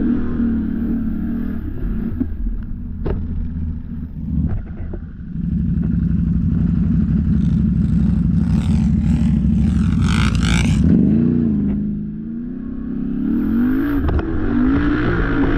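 Can-Am ATV's V-twin engine running under load, with several sharp knocks and clatter in the first few seconds, a brief burst of hiss about ten seconds in, then the engine pitch rising and falling as the throttle is worked.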